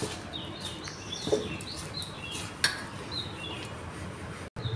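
Hand mixing crumbly sattu stuffing in a steel bowl: soft rustling with two sharp clicks against the metal. Small birds chirp repeatedly in the background.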